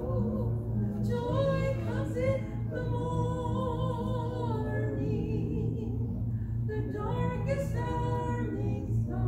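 A woman singing a gospel song over a steady, low sustained accompaniment. Her voice drops out briefly past the middle and comes back in about seven seconds in.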